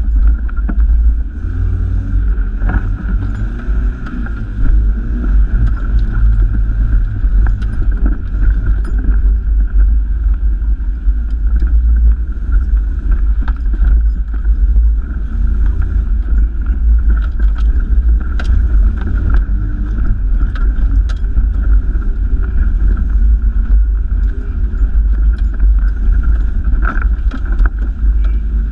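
Toyota Hilux four-wheel drive running at low speed over a rough track: a steady deep engine drone with a steady higher whine above it, and scattered clicks and rattles as the vehicle jolts over bumps.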